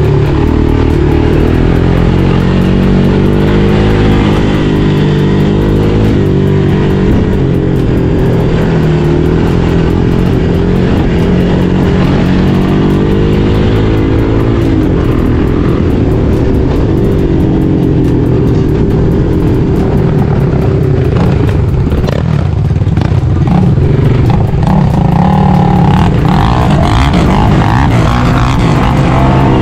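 A motor vehicle's engine running, with music playing alongside.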